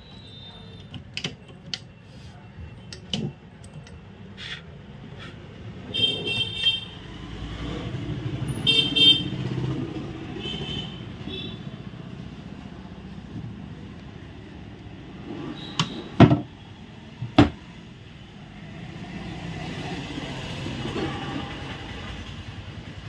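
Laminated wooden dressing-table drawer and cabinet doors being handled, with scattered clicks and knocks and two loud knocks about two-thirds of the way in. Street traffic runs underneath, with car horns tooting a few times in the first half.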